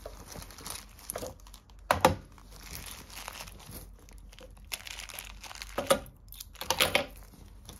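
Rustling and crinkling of a non-woven fabric pouch and a small plastic bag as keys and batteries are pulled out of it by hand, with a few louder crackles about two, six and seven seconds in.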